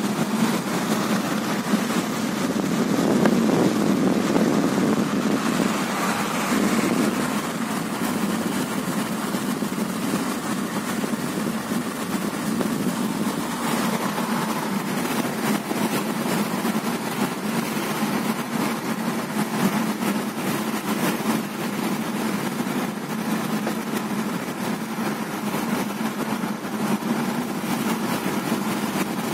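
Steady engine and tyre noise inside a car's cabin while it drives at speed on a highway, a little louder a few seconds in.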